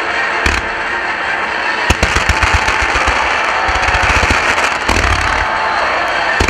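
Fireworks starmine, its ground mortars firing volleys of comets: a couple of single booms, then from about two seconds in a rapid string of launches, over a steady hiss, with another boom near five seconds.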